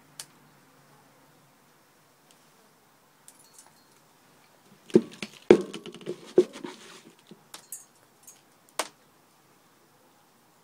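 Hands working and squeezing a wet peat-moss mix: scattered sharp clicks and a short cluster of knocks and rustles about five to seven seconds in.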